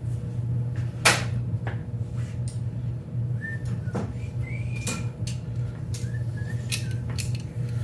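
Sharp clicks and knocks of hands working at a small chainsaw's plastic and metal parts, the loudest about a second in, over a steady low hum. A few short whistled notes come in the second half.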